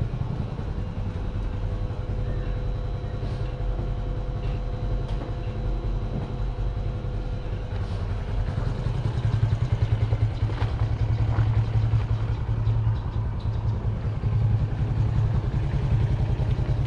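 Motorcycle engine idling steadily, a low even pulse.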